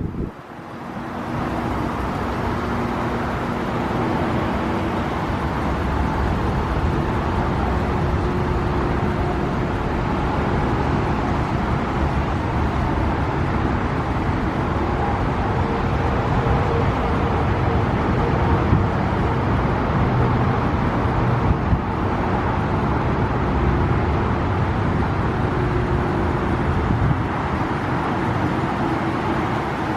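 Steady motor-vehicle rumble with a faint steady hum, fading in over the first second or two.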